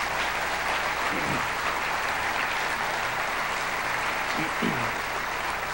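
Audience applauding steadily, with a faint voice or two heard beneath the clapping.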